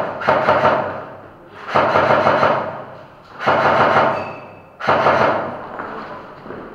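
Airsoft rifle firing on full auto in short bursts of rapid clicks: the end of one burst, then three more, each echoing away in an enclosed room.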